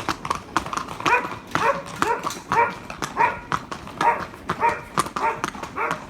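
Horses' hooves clip-clopping at a walk, under a run of short, pitched animal calls repeating about twice a second.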